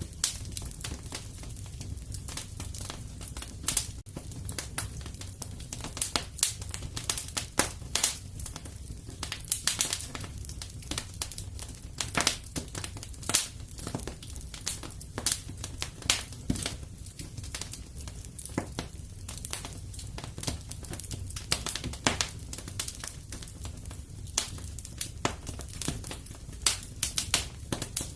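Fire crackling in a fireplace: irregular sharp pops and snaps, several a second and some louder than others, over a steady low rumble.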